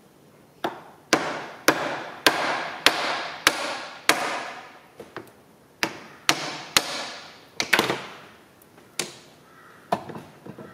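Hammer tapping a pin into a tractor levelling box: about fifteen sharp metal-on-metal blows, roughly two a second, each ringing briefly, with a pause near the end.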